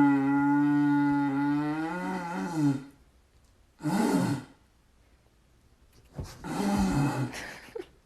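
A pet animal vocalizing: one long low call of about three seconds that wavers in pitch near its end, a short rising-and-falling call about four seconds in, and another call from about six seconds in.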